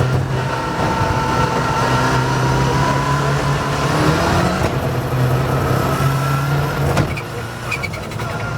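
Rally car engine running under load with a steady note and a thin whine that slowly rises in pitch. About seven seconds in there is a sharp knock, and the engine note drops and changes.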